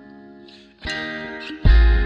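Background music: a held chord fades, new notes are struck about a second in, and a heavy bass comes in near the end.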